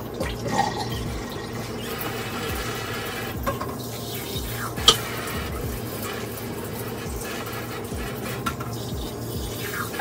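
Kitchen tap running steadily, filling a container with water at the sink, with one sharp clink about five seconds in.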